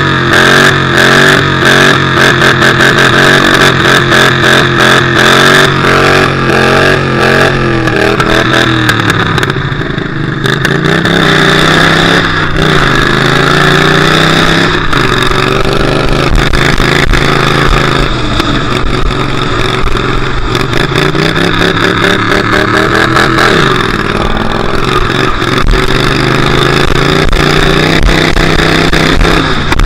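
Derby car's engine heard from inside the car, revving up and down repeatedly as it drives, with dense rattling and knocking throughout.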